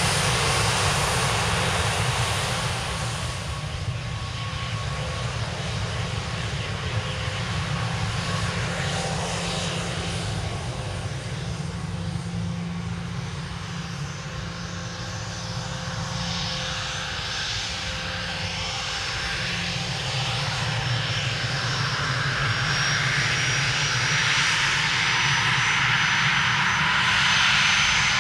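Bombardier Global 6000's twin Rolls-Royce BR700-series turbofan engines running at low power as the jet taxis and turns to line up on the runway: a steady jet hum. A thin high whine comes in about two-thirds of the way through, and the sound grows a little louder near the end as the engines turn toward the listener.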